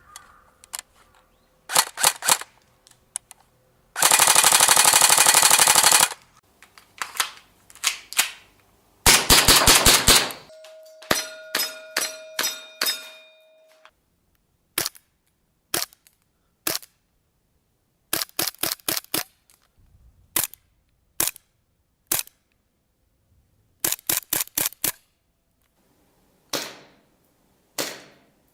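Airsoft guns firing: single shots and quick strings of shots, with two long full-auto bursts, one about four seconds in lasting some two seconds and another about nine seconds in. A ringing tone holds for about three seconds after the second burst.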